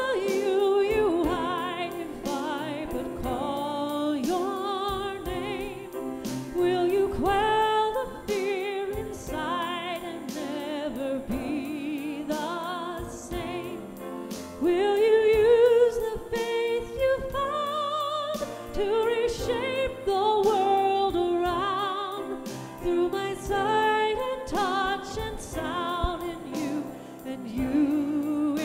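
Offertory hymn being sung: a singing voice with wide vibrato on long, held notes.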